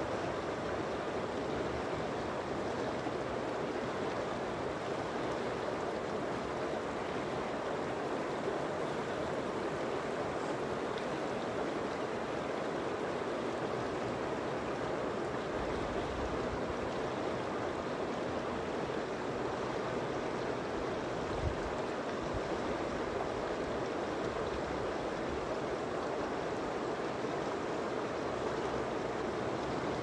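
Shallow, rocky river running steadily over stones and riffles: an even rush of water, with one brief low bump about two-thirds of the way through.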